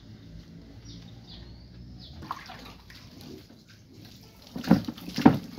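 Water poured from a plastic jug over a soapy dog, splashing loudly twice near the end; before that, the quieter sound of hands working lather through its wet fur.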